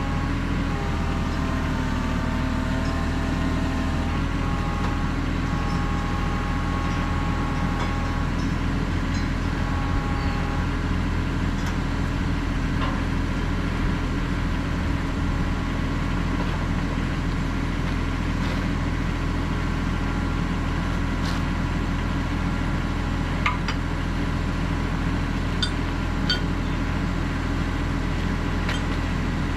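Kubota KX91-3 mini excavator's diesel engine running steadily at idle. A higher whine shifts in pitch during the first ten seconds or so, and a few light clicks come near the end.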